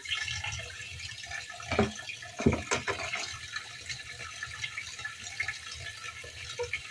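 Kitchen tap running steadily into a stainless steel sink while a cutting board is washed under the stream, with a few sharp knocks and clatters about two to three seconds in as the board is handled in the sink.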